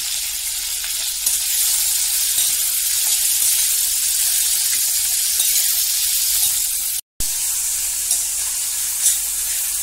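Sliced onions and potatoes sizzling steadily in hot mustard oil in a steel kadai, stirred with a metal spatula that gives a few light clicks against the pan. The sound drops out for an instant about seven seconds in.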